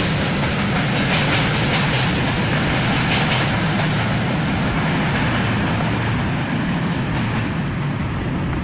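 Regional passenger train running past: a steady, loud rail rumble, with a run of wheel clicks over the first three seconds or so, easing slightly toward the end.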